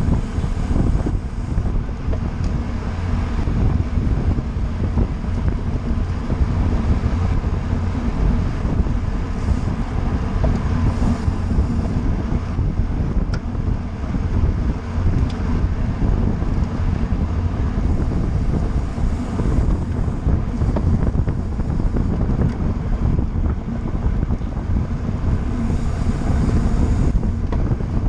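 Steady wind rushing over a bicycle-mounted camera's microphone while riding in a road-race pack at speed.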